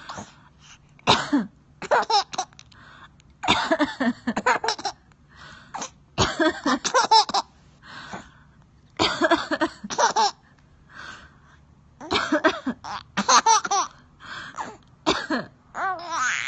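A woman coughing again and again, each cough followed by a baby's burst of laughter, about eight rounds in all.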